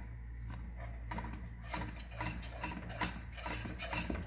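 Wire whisk stirring a milk and arrowroot pudding mixture in a metal pan: a quick, uneven run of light clicks and scrapes as the wires hit the pan. It grows busier about a second and a half in, over a low steady hum.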